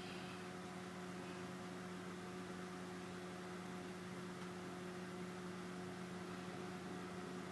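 A steady low electrical-sounding hum with a few overtones, over faint background hiss.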